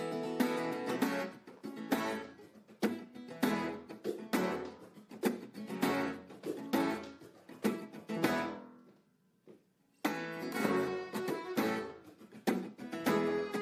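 Acoustic guitar strummed in a steady rhythmic pattern of chords. It stops for about a second and a half past the middle, then starts again.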